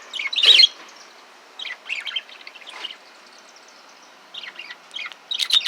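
Small caged pet birds, lovebirds among them, chirping in short scattered bursts, the loudest about half a second in and again near the end.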